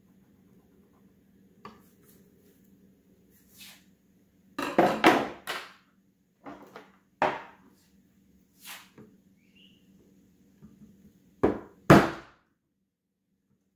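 Irregular knocks and clatter of PVC pipes and hand tools being handled and set down on a wooden workbench. A quick run of knocks comes about five seconds in, and the loudest pair near the end.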